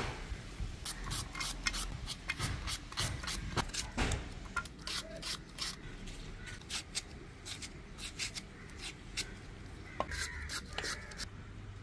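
A kitchen knife slicing jackfruit bulbs into thin strips by hand, a quick, irregular run of short, sharp cutting strokes.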